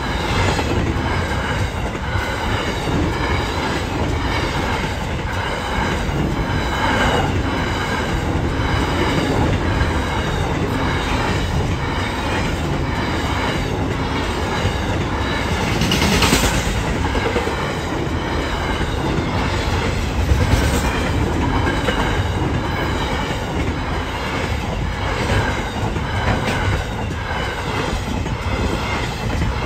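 Freight train wagons rolling steadily past, their wheels clicking rhythmically over the rail joints. A short, louder burst of noise comes about halfway through.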